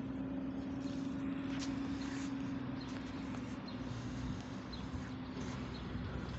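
Tractor engine running steadily: a faint low drone with a constant hum. A few faint, short, high chirps sound over it.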